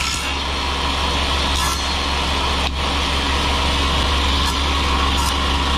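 Table saw motor running steadily with the circular blade spinning free, a continuous low hum with no cut being made.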